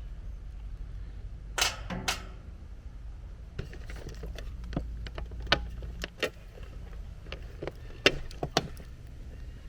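Scattered clicks and light knocks of hand tools and hardware being handled while working on an air-conditioner disconnect's wiring, over a low steady hum that stops about six seconds in.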